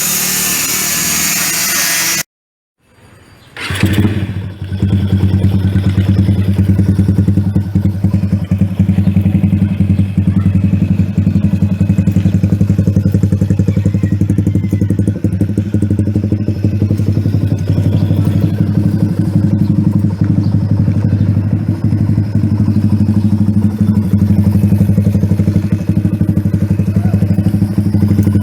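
Yamaha X1R motorcycle's engine with an HGM aftermarket muffler starts about four seconds in and then idles steadily, a low, even exhaust note. Before it, a loud hiss breaks off suddenly.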